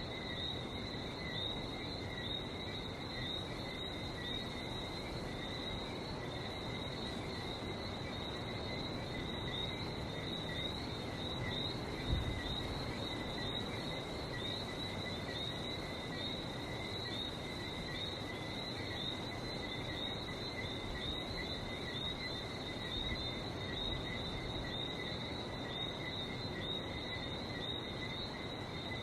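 Night chorus of many whistling frogs, short high chirping whistles repeating continuously over a steady low rush of the sea. A single brief low thump about twelve seconds in.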